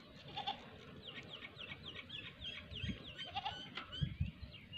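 A herd of goats bleating faintly, with a run of quick high chirps over them through the middle.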